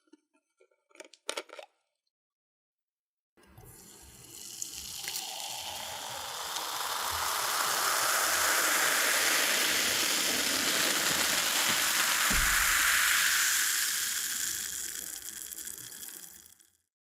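Cola poured into a glass: a steady splashing, fizzing pour that swells over a few seconds, holds, then tapers off and stops. A few light clicks come about a second in, before the pour starts.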